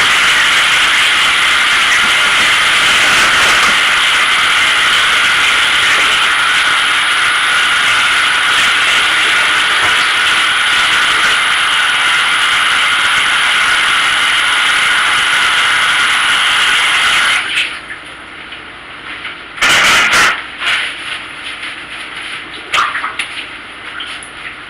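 Steady loud rushing hiss, like water running, that cuts off suddenly about two-thirds of the way in; a few short, louder noises follow.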